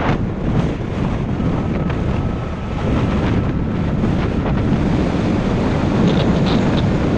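Wind buffeting the microphone of a camera on a moving motorbike, a steady loud rumble with the bike's road and engine noise mixed in beneath.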